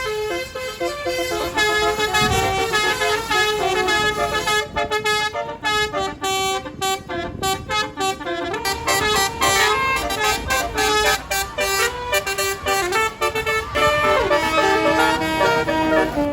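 A bus's telolet horn, a multi-trumpet basuri air-horn set, playing a melody of many quick stepped notes without a break.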